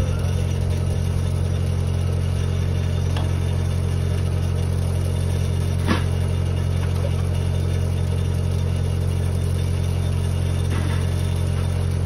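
Engine-driven welding machine running steadily, an even low engine drone, with a few light clicks, the sharpest about halfway through.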